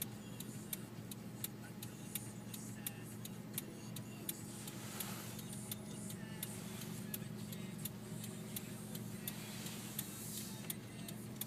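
A car idling, heard from inside the cabin: a steady low hum with an even clicking, about three clicks a second. A faint rushing swells up twice, about five seconds in and near the end.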